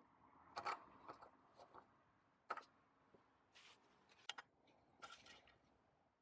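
Faint plastic clicks and rattles as an engine's oil filler cap is fitted back onto the filler neck and turned shut, several sharp clicks spread over a few seconds.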